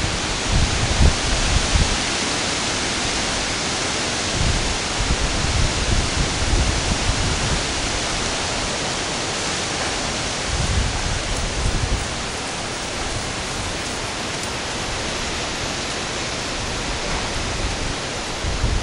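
Wind on the camcorder microphone: a steady hiss, with low gusts buffeting the microphone now and then, strongest near the start, around four to seven seconds in and about ten seconds in.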